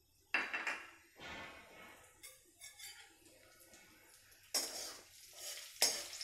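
Cumin seeds and asafoetida sizzling in hot mustard oil in a metal kadhai. A slotted metal spoon clatters and scrapes against the pan a few times, with sudden loud knocks about a second in, and again near the end.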